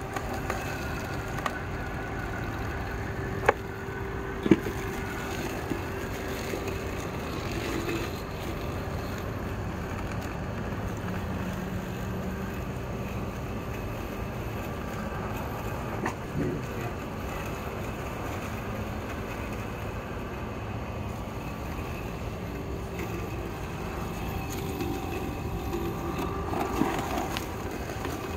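Yoleny robotic lawn mower running along its boundary wire through long grass, its electric motors giving a steady hum, with a few sharp clicks in the first five seconds.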